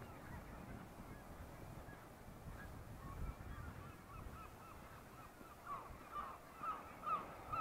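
Seabirds calling: short, rising honk-like calls that come sparsely at first and then every half second or so, growing louder toward the end.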